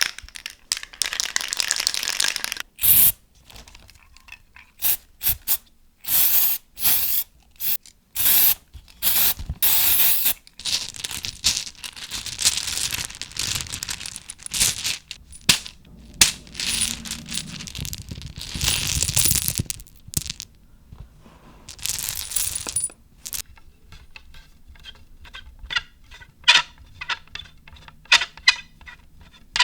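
Small hard objects clinking, rattling and scraping in a long run of short, irregular bursts, with a thin high metallic ring in the middle; the clicks thin out to scattered taps near the end.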